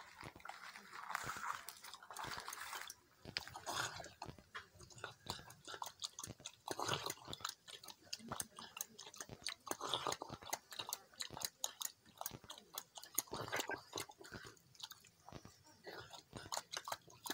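A puli dog eating from a metal bowl, chewing and biting in a quick run of short clicks.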